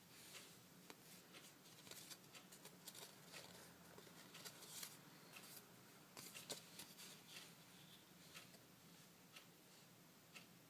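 Faint rustling and light clicks of a paper greeting card being handled and turned over in the hands, thinning out in the last few seconds, over a faint low steady hum.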